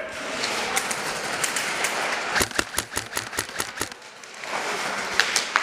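Airsoft rifle firing a rapid string of about a dozen shots, roughly eight a second, about halfway in. Scattered single shots ring out in the reverberant hall before and after it.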